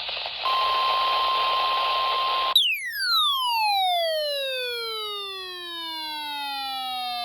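NOAA Weather Radio warning alarm tone, a steady single 1050 Hz tone over radio hiss, starting about half a second in. It cuts off at about two and a half seconds. A loud, slowly falling sweep of several tones together then descends to a low pitch for the rest of the time.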